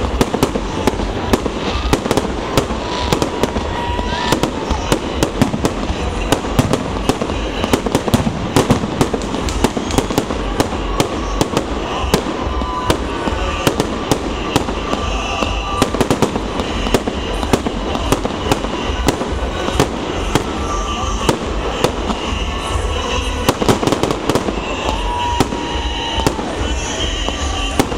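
Holiday fireworks salute: a continuous, irregular barrage of sharp bangs from shells bursting overhead, many close together.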